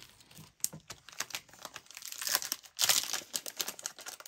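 Foil wrapper of a Panini Prizm baseball-card hanger pack being crinkled and torn open by hand, crackling in quick irregular bursts, loudest around the middle.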